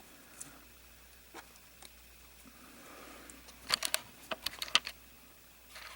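Small plastic sewing-machine parts, the push buttons and their circuit board, being handled: a few faint clicks, then a quick run of sharp clicks and taps about four seconds in.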